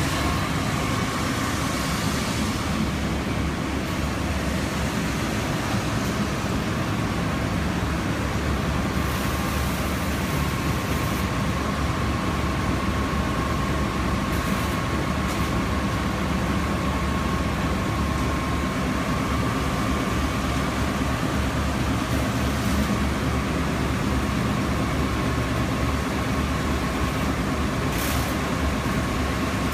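Textile-recycling workshop machinery running steadily: a continuous mechanical drone with a rumble underneath and a thin, steady high whine on top.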